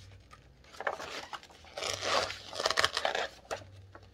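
Paper pages of a cross-stitch pattern booklet being leafed through and rustled by hand, in about three rustles with a few small clicks.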